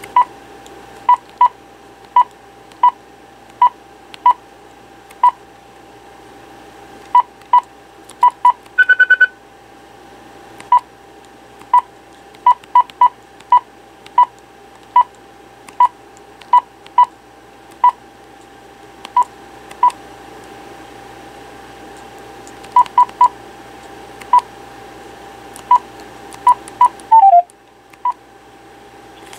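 Cordless telephone key-press beeps: a long run of short, irregularly spaced beeps over a steady tone, with one longer, higher beep about nine seconds in and a brief falling tone near the end.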